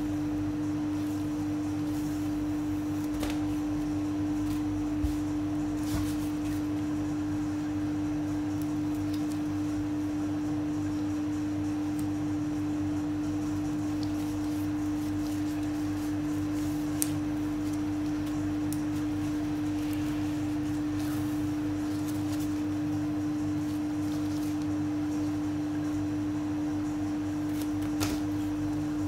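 A steady, unchanging hum at one pitch, with a few faint clicks scattered through it.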